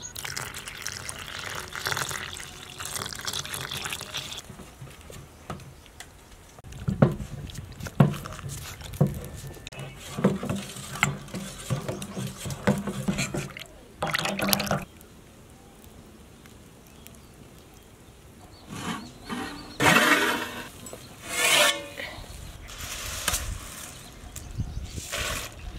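Milk poured from a carton into a steel bowl, then a steel ladle stirring the milk and flour mix, clinking and knocking against the bowl about 7 to 15 seconds in.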